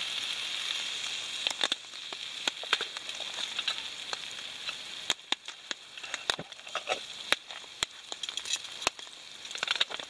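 Banana pancake sizzling in the pan, a steady hiss that fades over the first couple of seconds, followed by scattered small pops and clicks.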